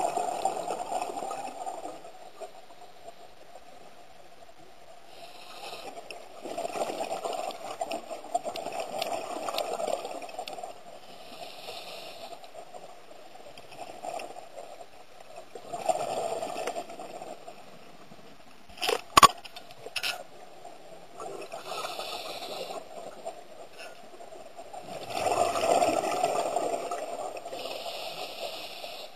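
A scuba diver's regulator breathing underwater: a long bubbling exhalation about every nine to ten seconds, with a short hiss of inhalation between them. A sharp double knock a little past halfway is the loudest moment.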